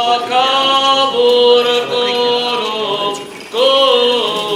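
Armenian Apostolic liturgical chant sung in long, held notes, with a short break about three and a half seconds in before the next phrase starts.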